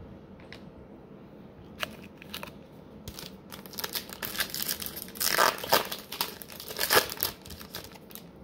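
A trading card pack wrapper being torn open and crinkled by hand, a run of crackles that starts sparse and grows dense and loudest in the second half.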